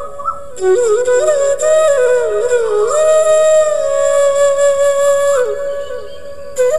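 Background music: a flute playing a slow melody of long held notes with short slides and ornaments between them.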